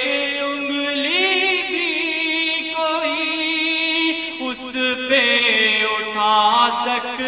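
A voice singing slow, ornamented phrases of an Urdu devotional-style tribute song over a steady held drone, with a new phrase beginning about a second in and another near the middle.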